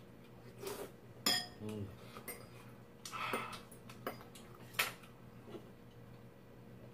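Metal spoon and chopsticks clinking and scraping against ceramic bowls during a meal: a few separate sharp clinks, the loudest about a second in with a short ring after it.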